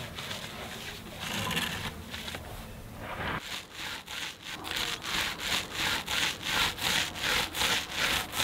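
Paint roller rolling back and forth over a sanded fiberglass-and-epoxy board, a rasping rub with each stroke. The strokes settle into a steady rhythm of about three a second from about the middle onward.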